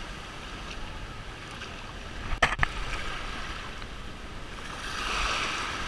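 Small waves washing onto a sandy beach, a steady rush of water. There is a sharp double knock about two and a half seconds in, and the wash swells near the end.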